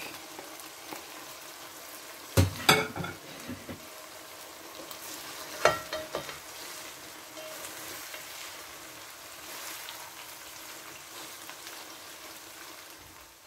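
Julienned carrots sizzling steadily in hot sunflower oil in a kazan with fried beef and onion, stirred with a spatula. A few sharp knocks against the pot come about two and a half seconds in, and one more near six seconds.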